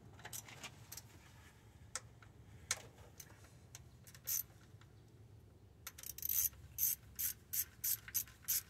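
Scattered light clicks and ticks of plastic and metal parts being handled around the ignition coil in the engine bay, turning into a quicker run of clicks over the last few seconds.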